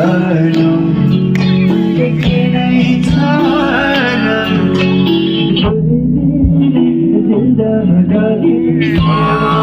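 A live band playing amplified music, led by electric guitar with a singing voice, over a steady beat. About two-thirds of the way through, the music briefly becomes sparser and duller, then fills out again near the end.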